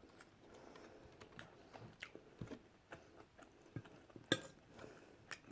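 Quiet eating sounds: a fork clinking on a plate and soft chewing, with one sharper clink about four seconds in.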